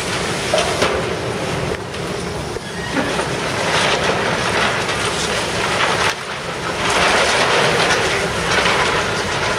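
Demolition excavator breaking reinforced concrete and rebar, with the machine running throughout and scattered sharp knocks. The noise grows louder about four seconds in and again from about seven seconds.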